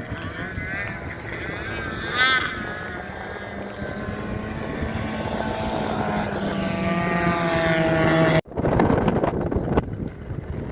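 A motor engine drawing nearer, running steadily and growing louder, its pitch easing slightly lower, then cutting off abruptly about eight seconds in.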